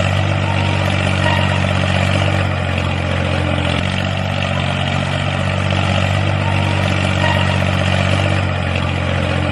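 A diesel tractor engine running steadily at idle, a low even sound that cuts in and out abruptly.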